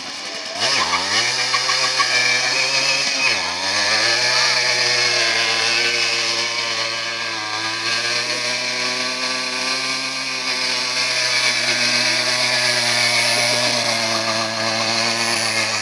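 Dual-sport motorcycle engine revved hard and held at high revs during a burnout, its rear tyre spinning on asphalt. The revs sweep up about half a second in, dip briefly near three seconds, then hold high and fairly steady.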